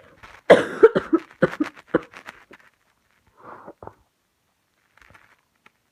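A woman coughing: a quick run of five or six loud, sharp coughs that get weaker, followed by a short fainter one.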